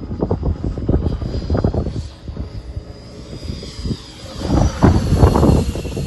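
Radio-controlled model jet flying past, its faint high whine drifting up and down in pitch. Heavy wind buffeting on the microphone, loudest in the second half, covers much of it.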